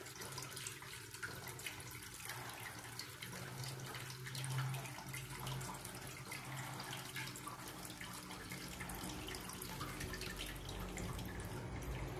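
Flush water running from the inlet spout across a metal squat toilet pan and into the drain: a steady rush of water with many small splashes and drips.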